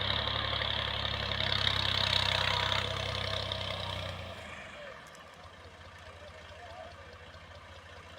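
Combine harvester running at work: a steady engine hum under a dense mechanical rush. It gets much quieter about four to five seconds in and then carries on as a fainter steady drone.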